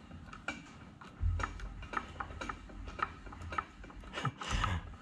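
Mill-drill's x-axis table being wound by hand, with light mechanical ticking about twice a second and a low hum through the middle.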